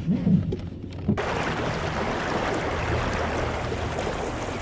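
Kayak moving under way, a steady rush of water along the hull from about a second in, after a few low knocks in the first second.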